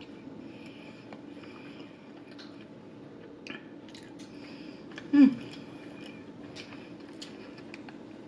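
A person chewing a mouthful of chicken sandwich close to the microphone, with small wet mouth clicks over a steady low hum. About five seconds in there is one brief, loud voiced sound from the eater.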